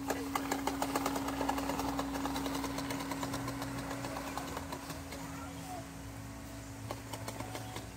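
Plastic toy push lawn mower clicking and rattling rapidly as it is pushed over grass, over a steady low hum; the clicks thin out and fade in the second half.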